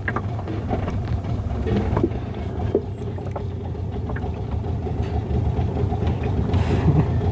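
A small boat's outboard motor running steadily while under way, heard from on board as a low rumble that grows slowly louder.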